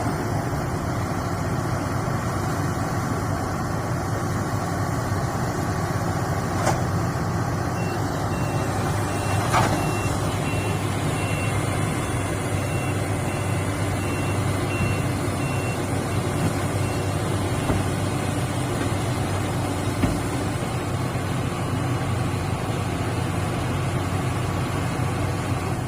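Heavy diesel machinery running steadily. About a third of the way in, a back-up warning alarm starts beeping about once a second, stopping after roughly ten seconds; a single sharp knock comes shortly after the beeping begins.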